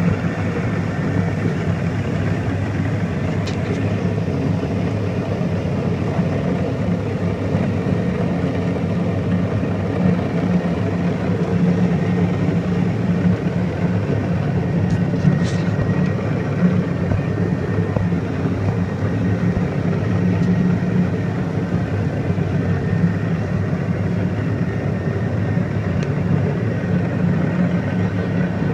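A watercraft engine running steadily at high power as it drives the flyboard, a continuous drone with the rush of churned water.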